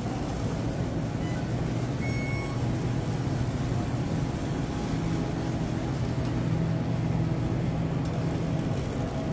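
Steady low rumble of a shopping cart being pushed across a supermarket floor, with a store's hum under it. A short, faint high beep sounds about two seconds in.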